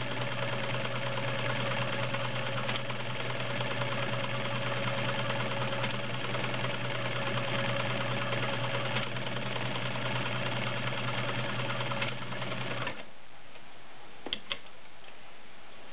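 Vintage Dressmaker SAMB-2 sewing machine running steadily while it sews an arrowhead decorative stitch off its built-in cam. It stops near the end, followed by a couple of light clicks.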